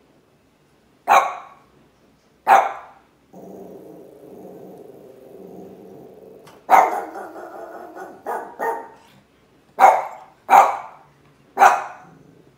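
Cavalier King Charles Spaniel barking twice, then growling steadily for about three seconds, then breaking into a run of about six sharp barks.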